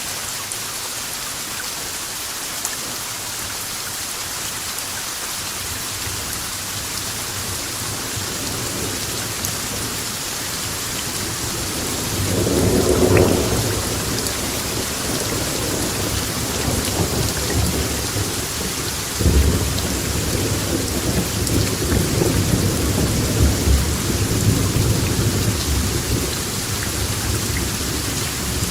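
Steady rain hissing. About twelve seconds in, thunder begins rumbling low; a sharper crack follows some seven seconds later and rolls on, still rumbling, near the end.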